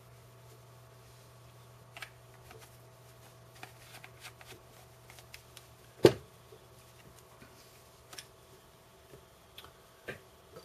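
Small clicks and taps of parts and tools being handled on a workbench, with one sharp knock about six seconds in that is much louder than the rest, over a faint steady low hum.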